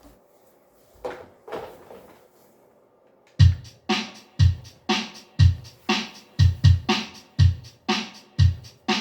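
Music from an Ibanez J Custom 8570Z electric guitar demo. Two soft notes come first, then about three and a half seconds in a heavy rhythmic part starts, with a low, punchy hit about twice a second.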